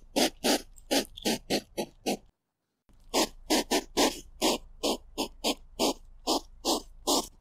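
Hedgehog giving a rapid series of short calls, about three a second, with a half-second break after about two seconds.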